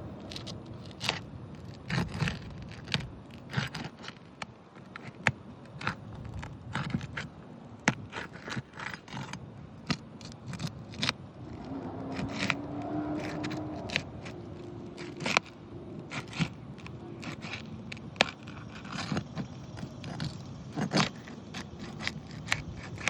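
Roof bar prying up asphalt shingles: irregular sharp clicks, knocks and short scrapes as the shingles' sealant strips are broken loose and the shingles lift and crackle.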